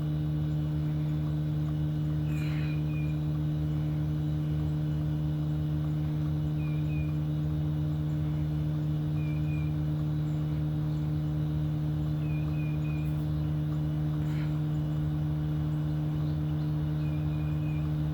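A steady low machine hum, with a few short high chirps here and there and two faint clicks.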